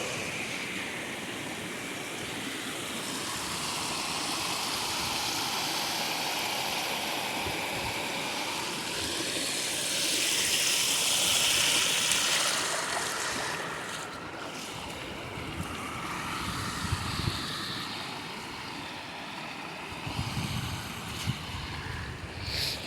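Steady rushing of water from the rain-swollen lagoon and its runoff, swelling louder about ten seconds in. Wind buffets the microphone in gusts in the second half.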